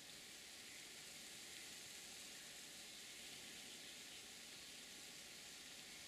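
Near silence: a faint, steady hiss with no other sound standing out.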